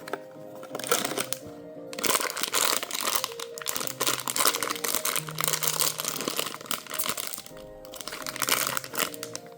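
Packaging crinkling and rustling in bursts as a blind box is unwrapped, over background music.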